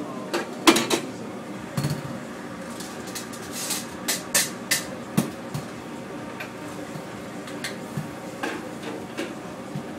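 Scattered sharp knocks and clatter of a metal bowl and hands on a stainless steel worktable, loudest about a second in and bunched between four and five seconds, over a steady background hum.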